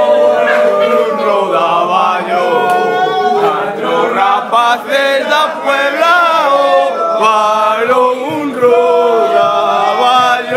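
A group of men singing a Galician folk song together, loud and unaccompanied, with long held and sliding notes in a chant-like chorus.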